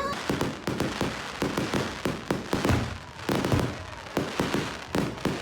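Fireworks display: a rapid, irregular string of bangs and crackles from exploding shells.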